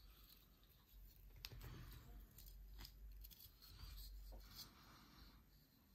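A few faint, sharp metallic clicks and light rustling from an Opinel No. 8 mushroom knife being handled at its steel locking collar and wooden handle.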